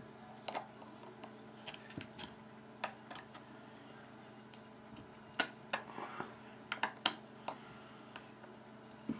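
Small metal clicks and ticks of a bit driver straining at a folding knife's pivot screw, which is held fast by threadlocker and does not turn. The clicks are scattered at first and come sharper and closer together about five to seven seconds in, the loudest near seven seconds.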